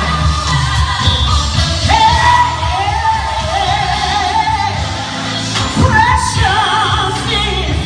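A woman singing a slow gospel song with strong vibrato over instrumental accompaniment, holding long notes, one from about two seconds in to about four and a half seconds in.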